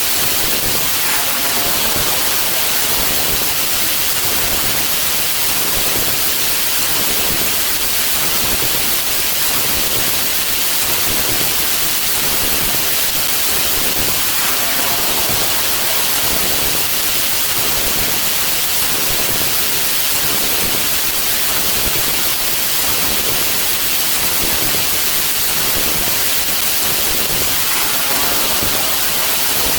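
Loud, steady static hiss like white noise, strongest in the highs. Faint arching tones rise out of it briefly about a second in, near the middle and near the end.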